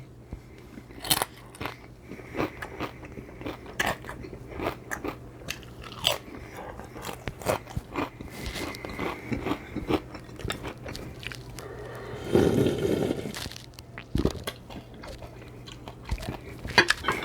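Close-miked eating sounds of a Mexican shrimp cocktail: wet chewing, biting and mouth clicks, irregular and continuous. About twelve seconds in, a louder sound lasting just over a second.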